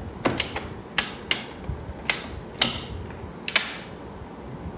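Hard plastic clicks and knocks, about seven in three and a half seconds at an uneven pace, as the Ninja Creami's clear outer bowl is handled and twisted into its lock on the machine.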